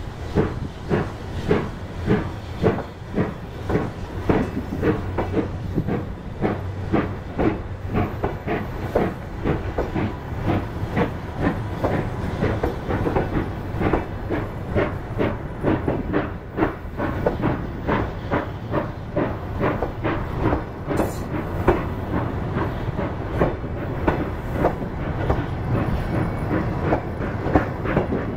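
Passenger coaches of a steam-hauled train rolling slowly past, their wheels clicking over the rail joints in a steady repeating rhythm, over a continuous hiss.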